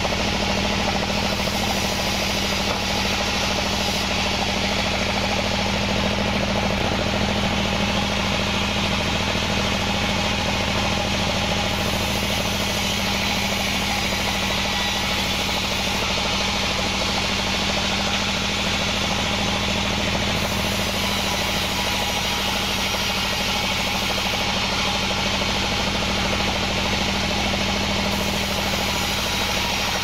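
Band sawmill running steadily while its blade cuts wadang wood into boards: a constant machine hum with an even, hissing saw noise over it.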